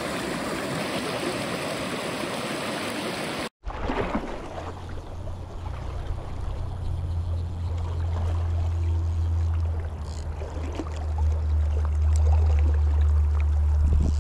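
Shallow South Platte River water running close to the microphone, an even rushing hiss. It cuts off abruptly about three and a half seconds in, then resumes more softly with a heavy low rumble underneath that grows louder toward the end.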